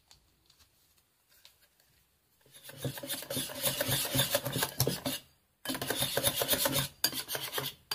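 Wire whisk beating flour batter in a glass bowl, the wires scraping against the bowl in rapid strokes. Two bouts of whisking, starting about two and a half seconds in, with a brief pause near the middle.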